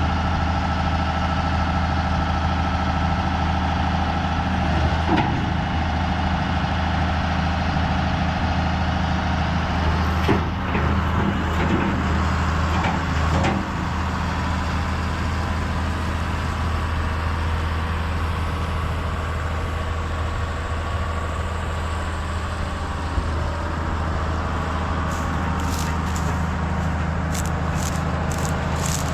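Heavy farm machinery engine running steadily, with a few knocks and rattles partway through and a run of sharp clicks near the end.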